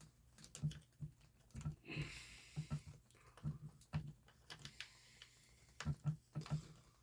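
Irregular light clicks and taps of small tools and plastic RC-car parts being handled on a workbench, with a brief scrape about two seconds in.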